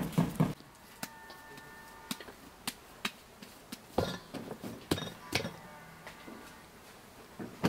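Hands kneading dough in an enamel bowl. A quick run of rhythmic pushes in the first half second gives way to scattered light knocks and clinks of hands and dough against the bowl.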